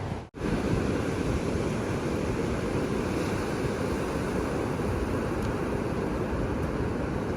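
Steady rush of ocean surf with wind on the microphone. The sound drops out for a moment just after the start.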